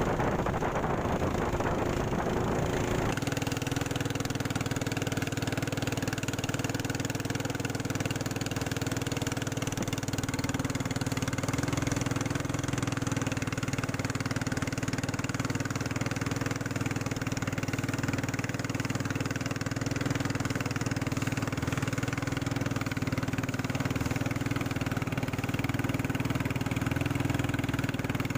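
Small fishing boat's engine running steadily at an even pitch. The first three seconds are wind noise on the microphone, then the sound cuts over to the steady engine.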